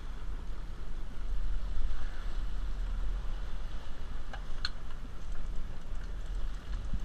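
Steady low rumble of wind on the microphone and the boat's engine, with water splashing beside the hull where a hooked striped bass thrashes. A brief sharp click comes about four and a half seconds in.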